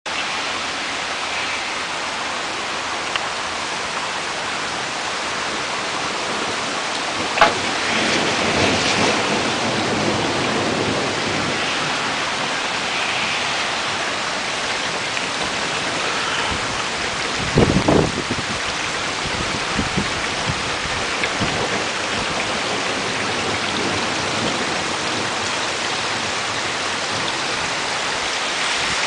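Steady rain falling in a thunderstorm, an even hiss throughout. A single sharp crack about seven seconds in and a short burst of low crackling knocks around eighteen seconds stand out above it.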